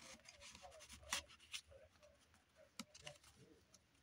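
Faint rustling of paper and card being handled and slid over a journal page, with a few soft taps.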